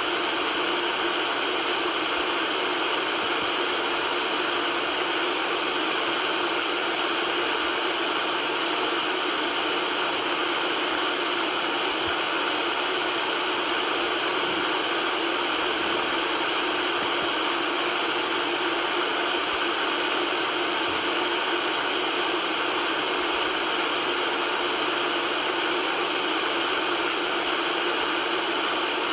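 Steady white noise: an even, unbroken hiss with little deep bass, unchanging in level throughout.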